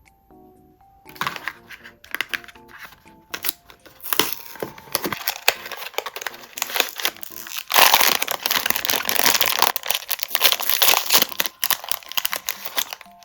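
Crinkling and crumpling of blind-box packaging wrapper handled in the hands, scattered at first and then dense and loud from about eight seconds in, over soft background music.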